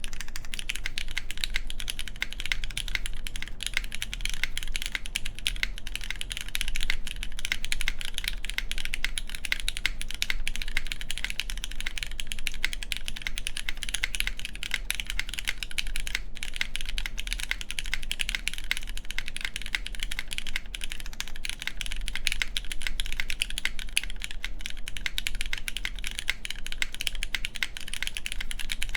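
Continuous fast typing on a 60% mechanical keyboard with lubed Cherry MX Black clear-top linear switches, a full aluminum plate and GMK keycaps, its spacebar mounted without a gasket beneath it. The keystrokes run as a dense stream of clicks.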